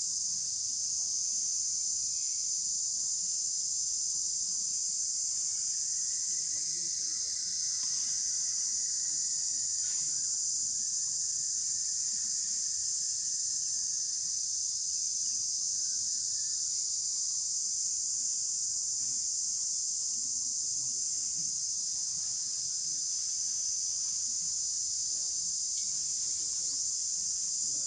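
Steady, high-pitched drone of an insect chorus, dense and unbroken.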